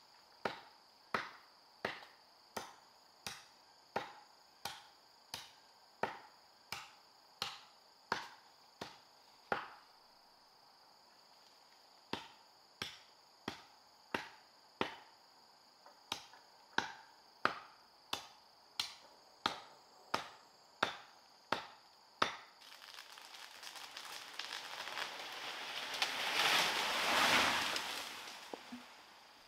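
Sharp knocks at a steady pace, a little under two a second, pausing for about two seconds partway and then going on, over a steady high insect drone. Near the end the knocks stop and a rushing noise swells for several seconds and dies away.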